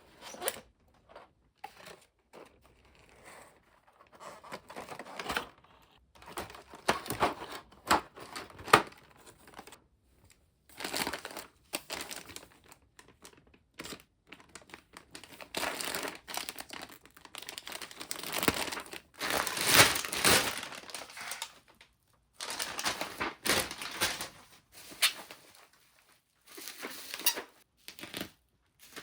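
Packaging being handled up close, crinkling and rustling in irregular bursts with short pauses between them.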